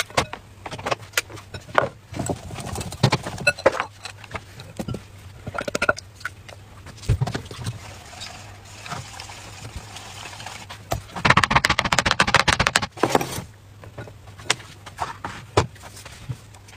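Kitchen prep sounds: scattered knocks and taps of a bowl and cookware set down on a wooden board, with a dull thump about seven seconds in. About two-thirds of the way through comes a couple of seconds of rapid, busy strokes, a whisk beating batter against the side of its bowl.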